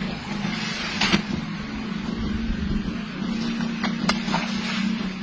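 A steady low motor hum under a hiss of background noise, with short sharp clicks about a second in and again about four seconds in.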